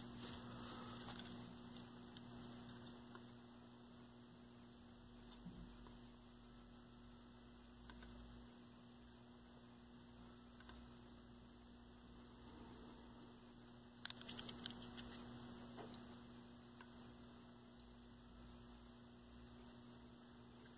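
Near silence with a steady low electrical hum, and a brief cluster of faint clicks about two-thirds of the way through.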